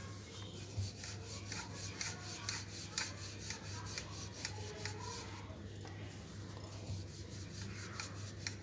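Wooden rolling pin rolling out paratha dough on a floured counter: a rubbing, scraping sound in quick repeated strokes, with light knocks of the pin.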